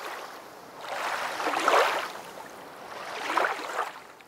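Water sound effect of waves washing in, swelling twice and fading away near the end.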